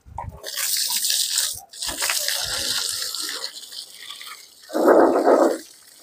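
Water from a garden hose spraying and splashing onto new brickwork and mortar, a steady hiss that drops out for a moment about one and a half seconds in and weakens in the second half. A short, louder sound breaks in near the end.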